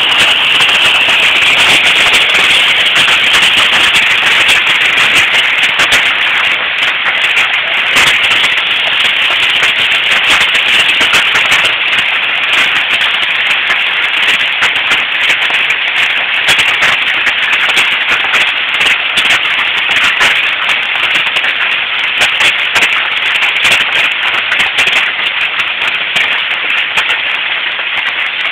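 Hail pelting down in a loud, dense, unbroken clatter of countless small impacts, through a cellphone microphone.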